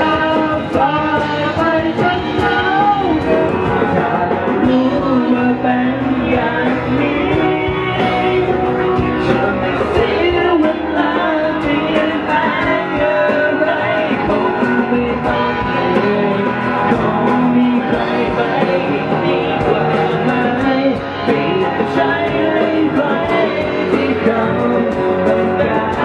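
A small band playing rock live, with electric guitars, bass and acoustic guitar, a steady beat, and a man singing lead into a microphone.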